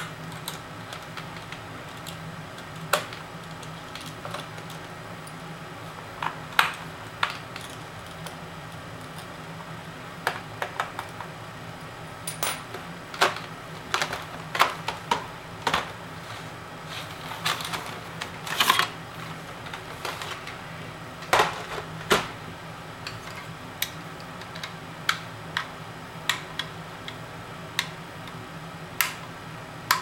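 Irregular clicks and taps of plastic and metal as a Dell Inspiron 1100 laptop's hard drive bay is opened and the drive is slid out, with a burst of several quick clicks about two-thirds of the way through. Near the end a small Phillips screwdriver works a screw on the drive's metal bracket.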